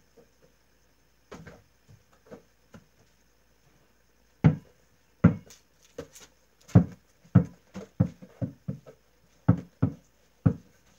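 A ball being bounced on the floor again and again, thumping about twice a second from about four seconds in, with a few lighter knocks before.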